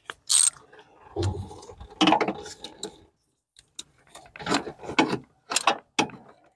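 Irregular clicks and clattering of a ratchet and socket being handled and worked onto the oil-pressure sending unit down in the engine bay, metal tool against metal, in short clusters.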